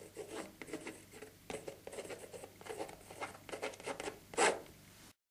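A painting tool scraping acrylic paint across a canvas in quick, irregular strokes, the loudest one near the end. It cuts off suddenly just before the end.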